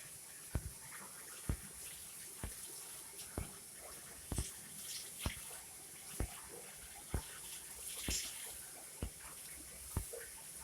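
Short, sharp taps or drips repeating at an even pace, about one a second, over a faint steady hiss.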